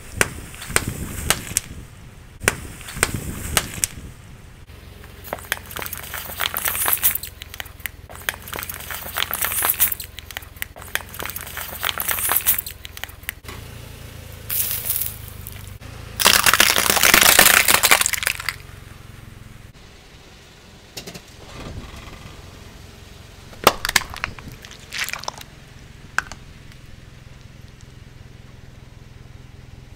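A car tyre slowly crushing objects on a hard floor: a run of crackling and snapping as it rolls over plastic bags of water beads, then a loud crunch lasting about two seconds as a pile of cheese puffs is flattened, and a few sharp cracks later on. A low steady hum runs underneath.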